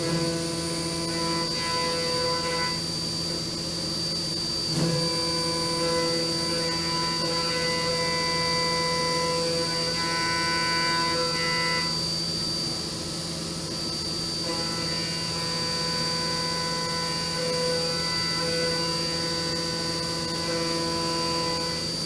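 Haas MiniMill2 CNC mill's spindle driving a cutter through aluminum under flood coolant: a steady machine whine made of several tones, with coolant hiss, the tones shifting slightly as the cut goes on.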